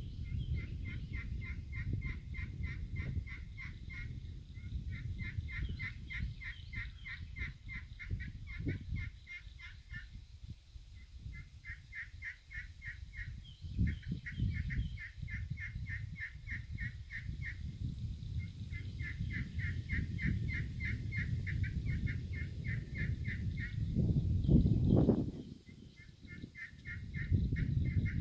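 Turkey pot call with an elm pot and a crystal-over-slate surface, played by drawing a striker across it: runs of quick, evenly spaced rasping yelp-like notes, in five series with short pauses between. A steady low rumble lies underneath, with a louder burst of it near the end.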